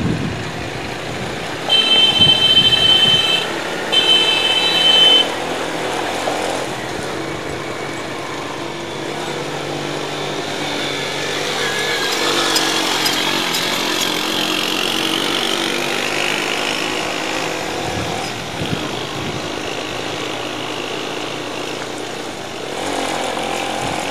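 Motorcycle engine running on a rough climbing road, over steady road and wind noise. A vehicle horn honks twice, briefly, about two and four seconds in.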